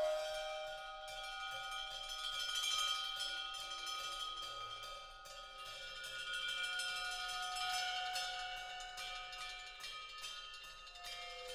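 Small metal percussion instruments struck in quick, dense succession by several players, with many bell-like tones ringing and overlapping.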